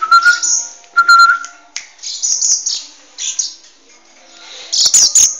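Common blackbird fledgling giving high, rasping calls in a string of short bursts. Two brief steady whistled notes come in the first second and a half, and a few clicks sound near the end.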